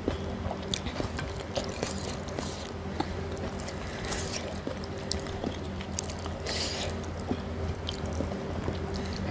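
Close-up eating sounds: fingers picking apart fish in rujak spice paste and wet chewing, with many small sticky clicks and a few short rustly crunches, over a steady low hum.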